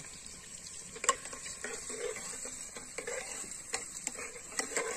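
A metal spoon stirring chopped onions frying in oil in an aluminium pressure-cooker pot, clinking and scraping against the pot over a faint sizzle. One sharp metal clank about a second in, then a few lighter clinks near the end.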